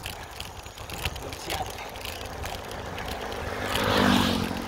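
Wind rushing over the microphone and tyre rumble from a bicycle moving along a dirt road, with a louder swell about four seconds in.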